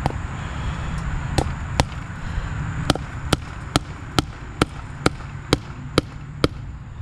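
A run of sharp clicks or light metallic taps, spaced about every 0.4 s through the second half, over a steady low rumble.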